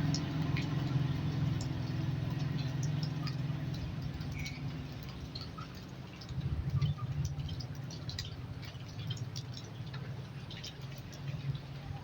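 Small scattered clicks and light taps, as of tools and parts being handled on a circuit board, over a low hum that fades away in the first few seconds and swells briefly about halfway through.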